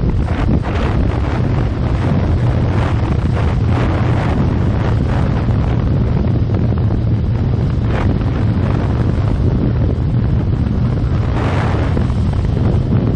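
Heavy wind buffeting the microphone of a motorcycle at riding speed, gusting constantly. Underneath is a steady low rumble from the 2015 Yamaha FZ6R and the road.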